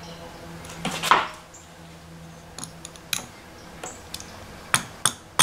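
Seating a Yamaha outboard's water pump lower housing seal over the driveshaft: a brief scrape about a second in, a few light knocks, then sharp taps about three a second near the end as the seal is driven down flush in the lower unit housing.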